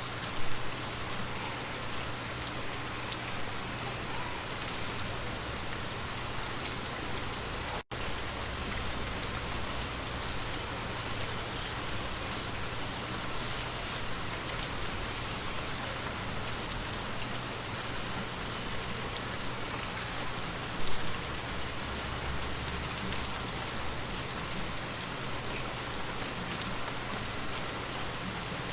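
Steady rain falling on surfaces, an even hiss with scattered drops. It swells briefly louder just after the start and again about two-thirds of the way through, and cuts out for an instant about eight seconds in.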